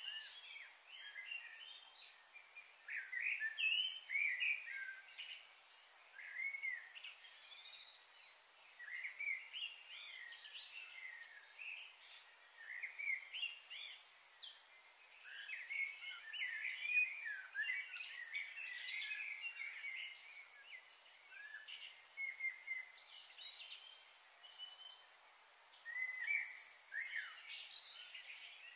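Birds chirping and calling in a dense, overlapping chorus of short rising and falling notes, over a steady high hiss.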